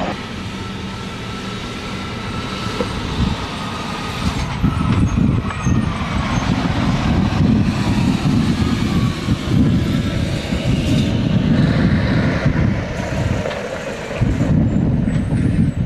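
Diesel engine of a loaded Mercedes-Benz Actros 4144 eight-wheel-drive dump truck running under load as the truck drives past and turns. It is louder from about a third of the way in, dips briefly near the end, then picks up again.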